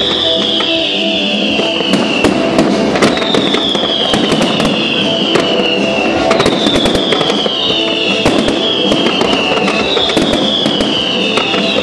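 Fireworks display: repeated sharp bangs and crackling from bursting shells and fountains, over music played with the show. A high tone that falls in pitch sounds about every two to three seconds.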